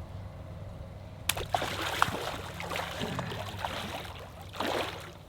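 Water splashing and churning as largemouth bass strike shiners thrown into the pond. It starts suddenly about a second in with a sharp smack, and there is another short splash near the end, over a low steady hum.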